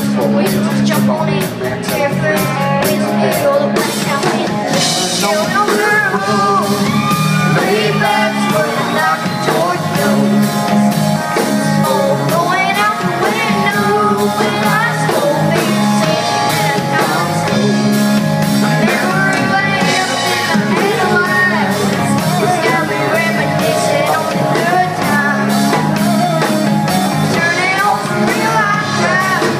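Live country band playing at full volume, with singing and shouts over the music.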